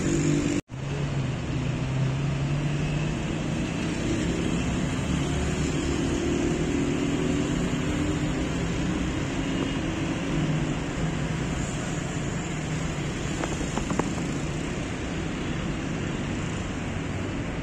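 Steady traffic noise from a multi-lane city expressway: cars passing below with a constant rush of tyres and engines. The sound cuts out completely for a split second under a second in.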